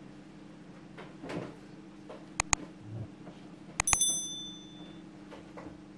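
Subscribe-button sound effect: two quick mouse clicks about two and a half seconds in, then two more clicks and a bell ding that rings for about a second. Beneath it are soft sounds of stiff bread dough being pressed and slapped by hand on a wooden table.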